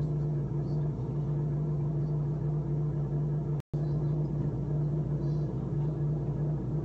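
Steady low hum and rumble of background machinery, unchanging in pitch, cutting out completely for a split second a little past halfway.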